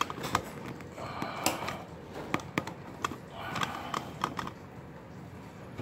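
Irregular light clicks and taps of handling: the recording device being gripped and adjusted, and takeout items set down on and moved around a cardboard pizza box.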